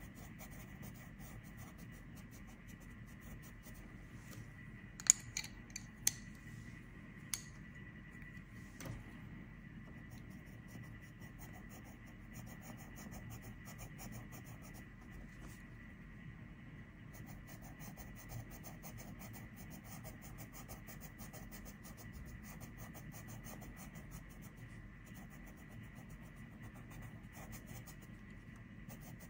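Coloured pencil shading on paper, a faint steady scratching. A few sharp clicks come about five to nine seconds in, as the orange pencil is put down and a pink one taken up.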